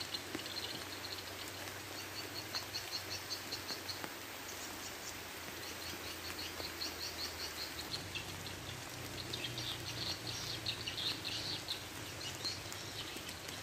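Steady rain falling on a pond, with repeated high-pitched chirping trills from wildlife.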